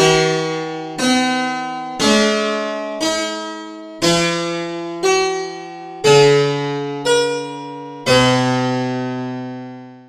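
Keyboard instrument playing a counterpoint example over a cantus firmus: a low melody in whole notes with a second voice above it, both changing together, note against note. Nine chords are struck about a second apart, each left to ring and fade, the last held about two seconds.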